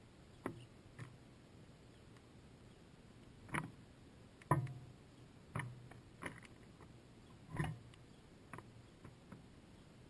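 House sparrows knocking and tapping on a seed-filled bird feeder close to the microphone as they land and peck: about a dozen irregular, dull knocks and clicks, the loudest about halfway through.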